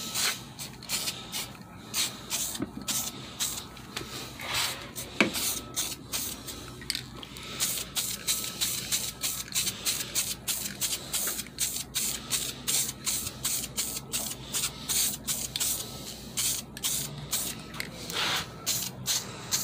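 Aerosol spray-paint can hissing in many short, quick bursts as paint is sprayed onto a metal part.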